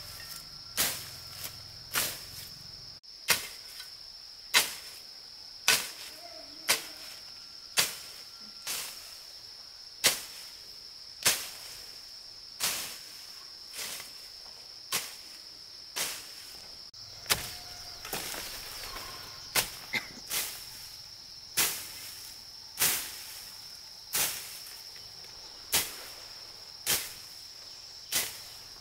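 A machete swishing and slashing through grass and weeds, one swipe about every second. Under it runs a steady, high-pitched insect drone.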